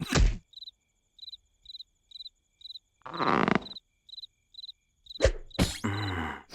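Cricket chirps repeating about twice a second, as cartoon night ambience. Over them come a sudden thump at the start, a short pitched vocal sound from a character a little after three seconds in, and more thumps and a vocal sound near the end.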